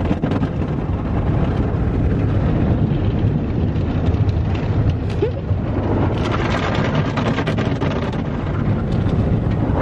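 Automatic car wash heard from inside the car's cabin: a steady rushing noise of water spray hitting the car's body and windows, with many small hits.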